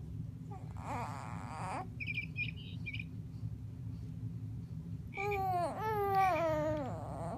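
Infant cooing and babbling: a short coo about a second in, a few high squeaks a moment later, then a longer drawn-out coo near the end that slides down in pitch.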